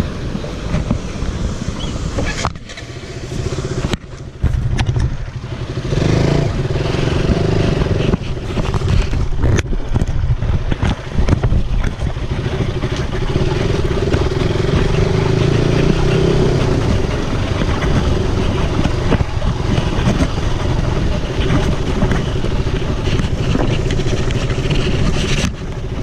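Motorcycle engine running as the bike rides over a rough dirt track, with wind noise on the camera microphone and scattered knocks from the jolts. The engine note holds steady through most of it, with a couple of brief dips near the start.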